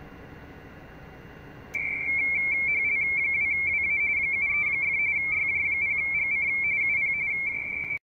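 Shortwave receiver hiss on the 17 m band, then, a little under two seconds in, a loud RTTY signal starts with a click. It is a rapid warbling data signal between two close tones near 2 kHz (170 Hz shift).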